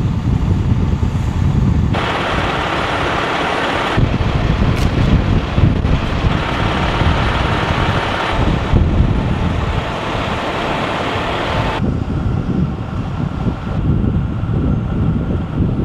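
Outdoor roadside noise dominated by the low rumble of idling heavy vehicles. A steady hiss comes and goes abruptly several times.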